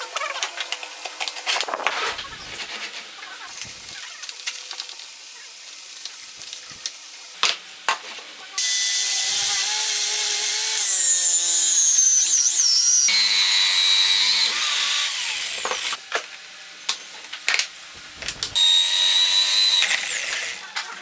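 Small metal clicks and clinks of hole-saw parts being handled, then an electric drill in a homemade wooden drill-press stand driving a hole saw through a wooden board: a loud whine whose pitch sags and wavers as the saw bites, stopping, then a second shorter cut near the end.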